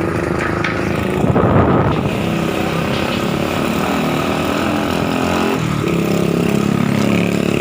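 A vehicle engine running steadily while the vehicle is on the move, its pitch shifting about six seconds in as the engine speed changes.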